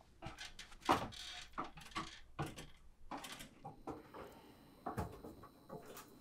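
Footsteps and knocks of someone climbing a wooden folding attic ladder and stepping onto a plywood attic floor: a string of irregular thumps, the loudest about a second in.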